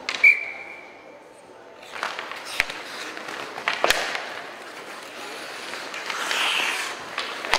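Ice hockey play: a sharp crack with a short ringing tone right at the faceoff, then sticks and puck clacking a few times and skates scraping the ice, with spectators' voices underneath.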